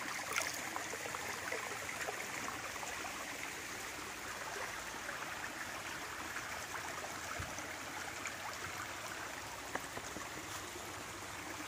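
Shallow water from a very small waterfall running and trickling over flat rocks, a steady, even rush with faint splashes.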